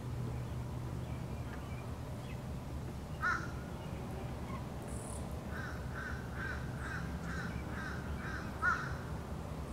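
Animal calls: a single call about three seconds in, then a run of about nine short, evenly spaced calls near the end, roughly three a second.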